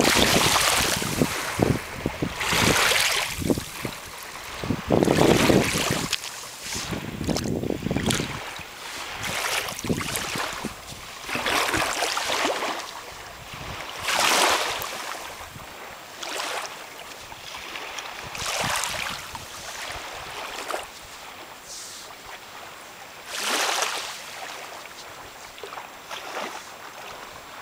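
Small Lake Michigan waves washing in over sandy shallows, each one a rising and fading splashy hiss about every two to three seconds. Wind buffets the microphone with a low rumble for roughly the first eight seconds.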